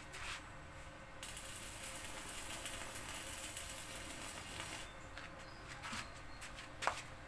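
Stick welding arc crackling steadily for about four seconds as a weld is run on a steel frame, starting about a second in and cutting off abruptly. A few sharp taps come before and after it.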